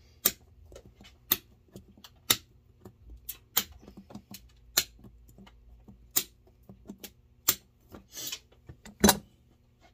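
End-cutting nippers snipping off threaded heel nails sticking up from a boot's heel seat: a sharp metallic snap about once a second, with lighter ticks of the jaws and nail stubs in between.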